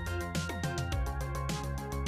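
Background music with a steady, fast beat over sustained notes and bass.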